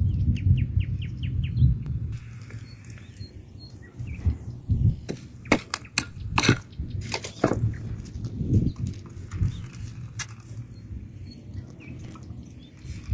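Small pick hammer knocking and scraping into stony ground, with a cluster of sharp knocks from about five to eight seconds in. A low rumble fills the first couple of seconds, and a few short bird chirps sound faintly.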